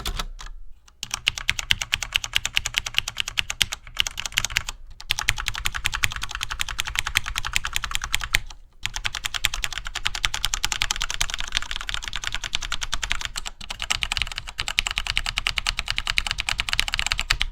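Mechanical keyboard with linear switches being typed on rapidly: a dense, fast stream of key clacks, broken by short pauses about a second, five and nine seconds in.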